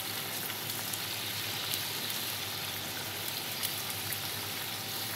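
Samosas deep-frying in a pan of hot oil: a steady sizzling hiss with scattered small crackles.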